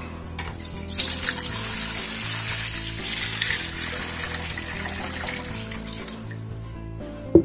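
Water poured from a jug into a large metal pot, splashing as the pot fills, loudest in the first few seconds and stopping about six seconds in. A single sharp knock follows just before the end.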